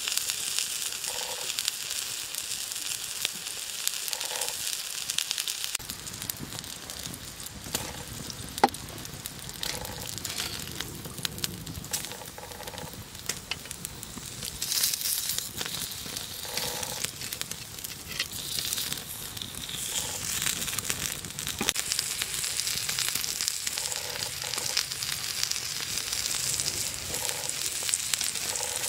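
Meat sizzling as it cooks over a campfire: a steady high hiss scattered with sharp pops and crackles, one louder pop about nine seconds in.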